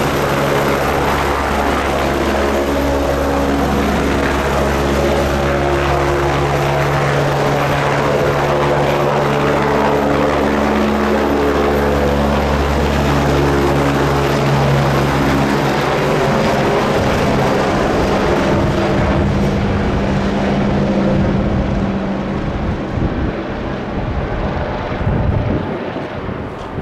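Agusta A109 twin-turbine helicopter lifting off and climbing away: a loud, steady rotor beat with a high turbine whine. The sound fades and thins from about twenty seconds in as the helicopter draws away.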